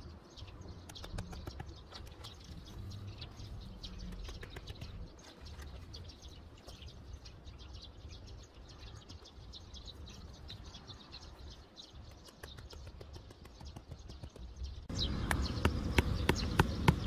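Birds chirping faintly over low outdoor background noise. About two seconds before the end the background gets louder and a few sharp knocks sound.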